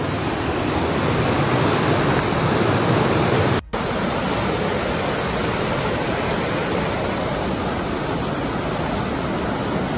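Muddy floodwater rushing through a street in a steady loud roar, with a brief break about four seconds in before the rushing resumes.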